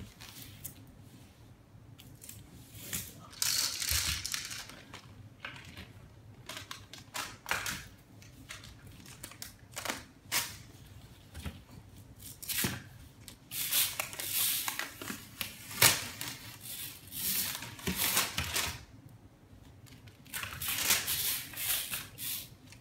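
Adhesive lint roller being worked over a foam play mat, its sticky tape crackling and tearing in repeated spells a few seconds apart.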